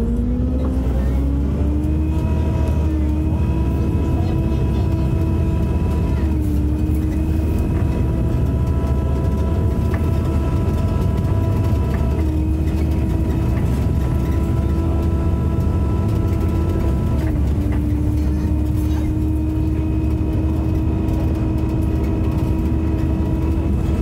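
Single-deck bus driving under power: a deep engine drone under a loud, hoover-like whine. The whine rises over the first couple of seconds and then holds steady, with short dips about six, twelve and seventeen seconds in.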